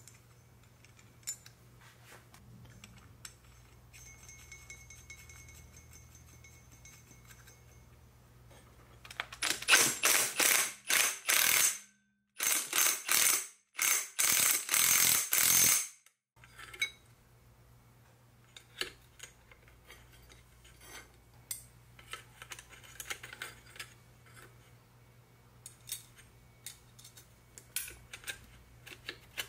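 Hand ratchet wrench clicking in quick strokes for several seconds in the middle, stopping briefly twice. Before and after it come scattered light clicks and knocks of tools over a faint steady hum.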